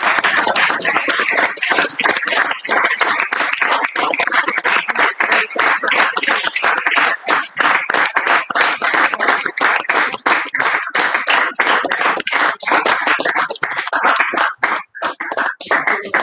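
Audience applauding: dense clapping that thins into scattered claps near the end.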